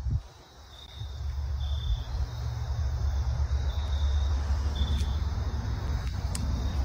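Insects chirping in woodland, short high chirps about once a second, over a steady low rumble on the phone's microphone that sets in about a second in; a couple of faint clicks near the end.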